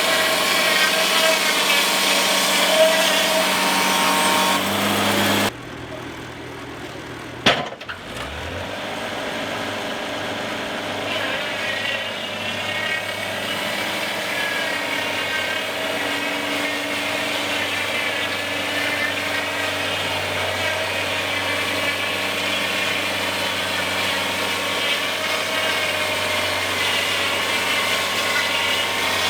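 Wood-Mizer band sawmill running, its blade cutting through a pine log with a steady, wavering whine. About five seconds in the sound drops away suddenly, a single sharp click follows, and then the sawing sound builds back up and runs steadily.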